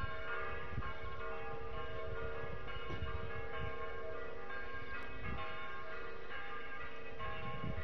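Bells ringing, many pitches sounding and overlapping, over a low uneven rumble.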